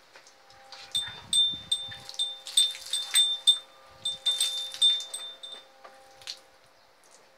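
A small high-pitched bell ringing in quick, even strikes, about three a second, for roughly five seconds, with a few low knocks among them.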